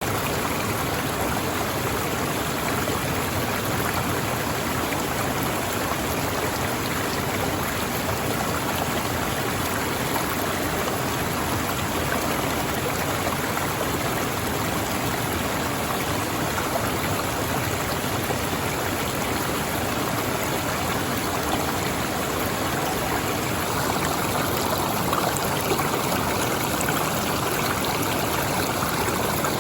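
Steady rush of stream water flowing over small falls, becoming slightly louder near the end.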